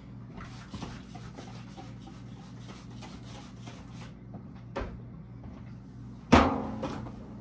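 Housekeeping work out of sight: a few seconds of rubbing, then a knock, and about six seconds in a sharp, loud bang with a short ring, over a steady low hum.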